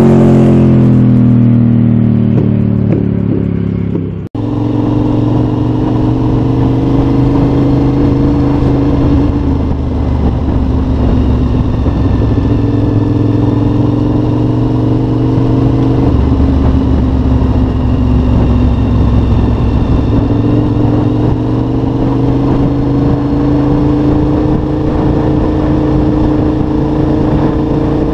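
Cagiva Raptor 1000 V-twin: first a bike passing at speed, its engine note falling away as it recedes. Then, after an abrupt cut, the engine is heard from on board while riding, holding a steady note that slowly rises in pitch, dips about halfway through and climbs again.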